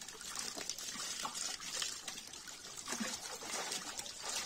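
Shallow pond water splashing and trickling, with many small sharp splashes, as fish are scooped by hand out of a hauled-in fishing net into bowls.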